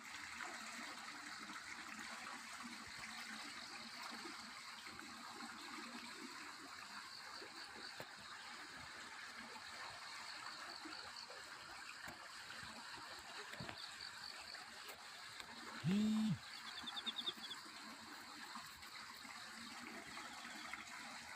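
A stream running steadily, with a bird's quick high trills repeating every few seconds. About 16 seconds in comes one short, loud, low-pitched animal call, the loudest sound.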